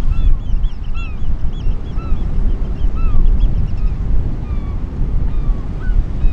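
A flock of birds calling in short arched honks, many at once for the first few seconds and then fewer and more spaced out, over a steady low rumble of wind and sea.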